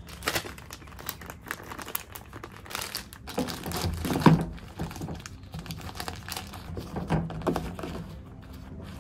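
Clear plastic zip-top bag crinkling and rustling in gloved hands as an oil sample bottle is handled and bagged, with a sharper knock about four seconds in.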